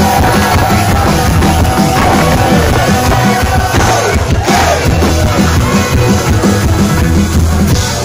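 Live band playing a rock song on acoustic instruments (acoustic guitar, upright bass and drums) with a steady driving beat, loud.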